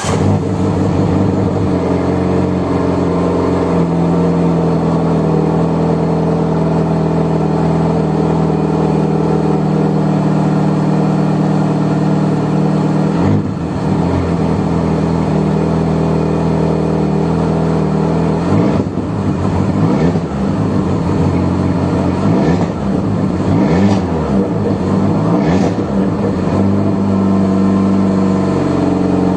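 Peugeot 307 engine with a straight-through exhaust, just a bare pipe and no muffler, rumbling loudly at a steady idle. In the second half it is blipped several times, the pitch rising and falling with each rev.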